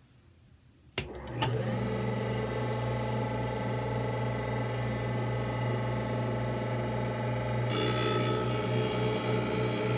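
Cross-grinding wheel of a skate-sharpening machine switched on with a click about a second in, spinning up to a steady hum. About three-quarters of the way through, a loud harsh hiss joins it as the wheel grinds rust off the steel skate blade.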